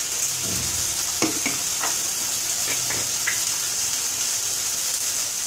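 Steady sizzle of a ground tomato, garlic and pepper paste frying in oil in a steel kadai, with a few light clicks and scrapes as rock salt is added and stirred in.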